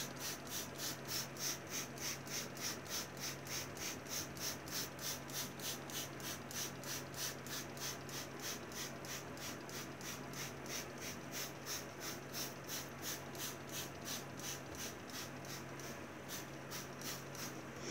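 Watered-down white glue squirted from a squeeze bottle in quick repeated squeezes: a soft, regular sputter about four times a second over a faint steady low hum.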